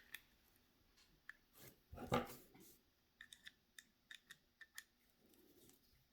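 Faint clicks and small knocks of the headlight switch's plastic parts being handled, with one louder knock about two seconds in and then a run of quick light clicks.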